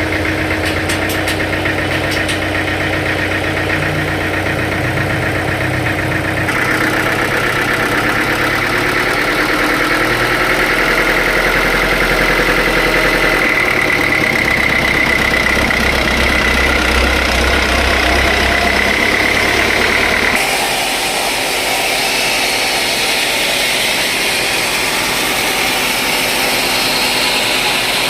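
Sawmill machinery running steadily with a loud engine drone. From about 6 seconds in a whine slowly rises, and the sound changes abruptly again about 20 seconds in.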